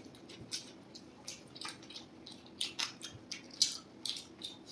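Close-miked wet eating sounds: fried rice being mashed by hand into Manchurian gravy and eaten, a string of irregular squishy smacks and clicks.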